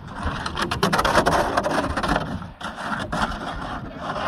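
Footsteps crunching in packed snow and a plastic sled scraping over the snow as it is dragged by its rope up a snowbank, in irregular crunches with a short lull partway through.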